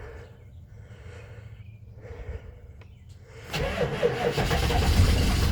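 A 6.5 L turbo-diesel V8 in a 1995 Chevy K3500 being cranked by its starter, starting about three and a half seconds in with a loud rhythmic churn. It is a cold start after the truck has sat ten days or more, and the engine nearly catches but does not yet run.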